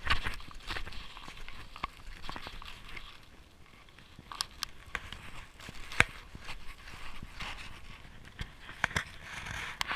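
Snowshoe footsteps crunching on packed snow at an uneven pace, with scattered sharp clicks; the loudest click comes about six seconds in.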